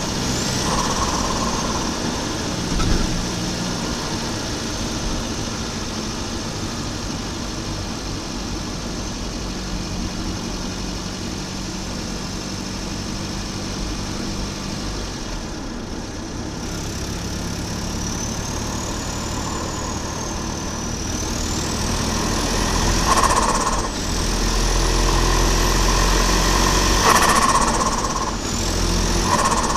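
Volvo 940 Turbo's B230FT turbocharged four-cylinder running steadily, then pulling under boost with the turbo whistle rising several times. Three times in the last third, lifting off the throttle brings a short fluttering burst of compressor surge as the whistle drops.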